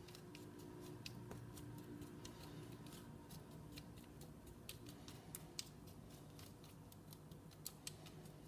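Near silence, with faint, irregular light clicks of a spoon working and pressing chunky diced-pear and chocolate filling into a tart crust.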